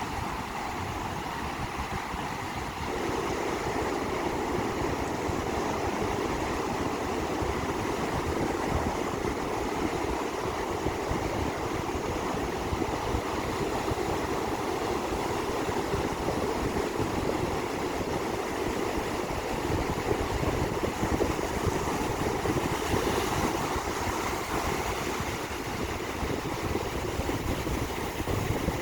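Sea surf washing onto the beach: a continuous rushing of waves that grows louder about three seconds in.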